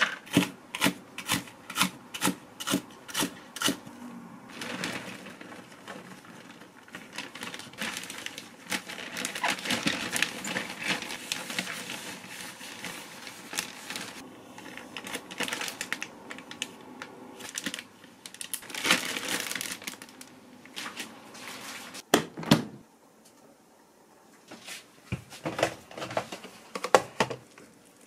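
A kitchen knife chopping green onions on a plastic cutting board, about two strokes a second, stopping about four seconds in. A long stretch of plastic zip-bag crinkling and rustling follows as the cut onions are packed in a bag lined with paper towel. A few light knocks and scrapes come near the end, as a plastic rice paddle scoops cooked rice from a rice cooker's metal pot.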